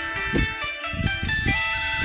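Nokia Asha 300 ringtone playing: an electronic melody of held notes that step in pitch over a beat of drum hits.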